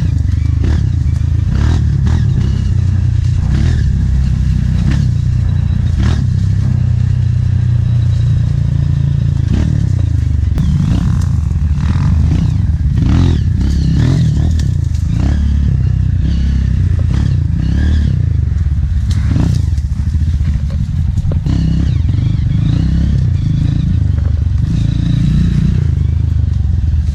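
Honda CRF230F trail bike's single-cylinder four-stroke engine running through an aftermarket Belpart exhaust, its revs rising and falling with the throttle while riding a rough dirt trail, with knocks and rattles from the bike over the uneven ground.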